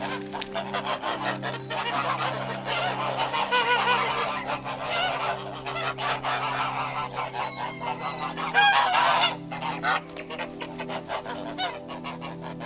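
Geese honking, many calls overlapping, with the loudest honks about eight to nine seconds in.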